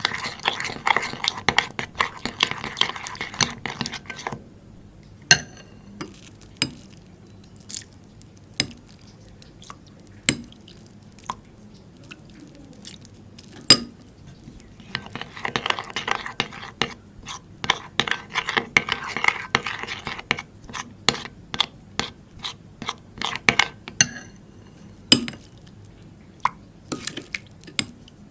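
Slime being stirred and worked in a bowl, giving dense wet crackling and clicking with occasional sharp clinks. The dense runs come twice, at the start and again in the middle, with scattered single pops and clicks between and after them.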